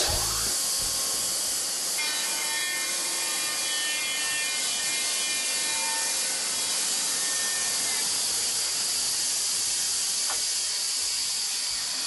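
Electric-motor-driven portable band sawmill, a Linn Lumber Mill Model 190-A, with its band blade cutting steadily through a board of the log: an even hiss of the blade in the wood over the drive's running noise.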